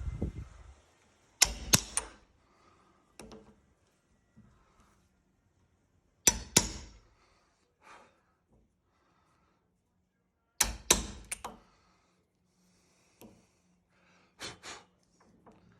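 Sharp knocks of a corner punch being struck to square the corners of a door-edge latch mortise, coming in clusters of two to four with quiet gaps of a few seconds between.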